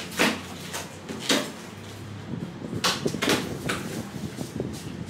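Clear plastic food packaging being handled: five sharp crinkles and clicks, one near the start, one about a second later and three close together past the middle, over a steady low hum.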